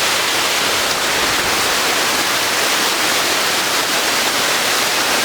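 Water pouring down a large upland waterfall, heard close as a loud, steady rushing hiss.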